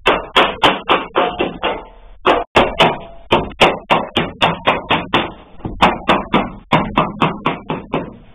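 A rapid series of sharp knocks or taps, about three to four a second, each ringing briefly, pausing twice.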